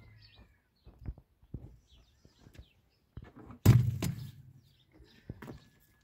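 Scattered light knocks and clicks, with one loud thump a little past halfway.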